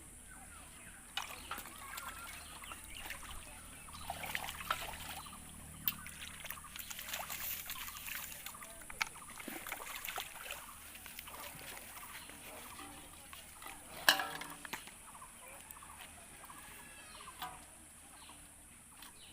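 Water trickling and splashing irregularly, with a run of small splashes and one sharp louder splash about 14 seconds in.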